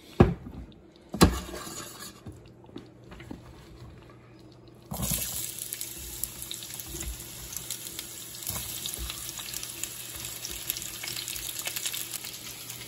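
Two sharp knocks about a second apart, then from about five seconds in a steady crackling sizzle of sliced zucchini frying in hot olive oil in a nonstick skillet.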